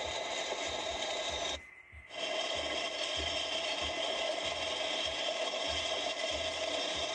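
ATV riding along a gravel road: a steady, noisy mix of engine and tyres on loose gravel with low thumps underneath. The sound drops out briefly about two seconds in, then resumes as before.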